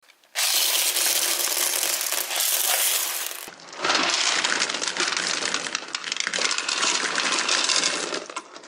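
Dense, continuous clattering of many small hard pieces, in two stretches joined by an abrupt edit about three and a half seconds in.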